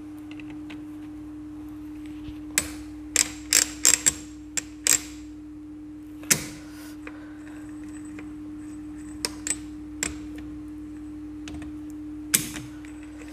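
Sharp metal clicks and clinks of motorcycle engine parts and hand tools being handled during engine reassembly, a quick cluster of them a few seconds in and scattered single ones later, over a steady hum.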